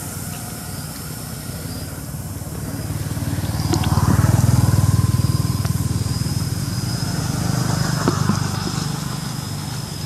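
A motor vehicle engine passing by, growing louder to a peak about four seconds in and then slowly fading. A thin, steady high whine sounds over it from about halfway.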